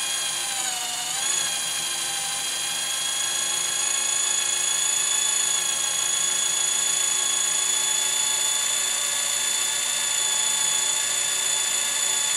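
Corded electric hand drill running steadily under load as a Würth drill bit bores into a grade 8 steel bolt, its motor whine dipping briefly in pitch about a second in, then holding steady. The bit is cutting at the speed that throws long curly chips.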